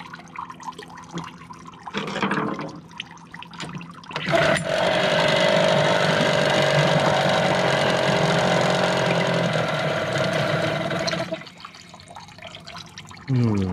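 Small outboard motor running at idle with its idle speed screw turned up, a steady low hum. About four seconds in, a much louder steady rushing noise starts suddenly, holds for about seven seconds, then drops away, leaving the idle hum again.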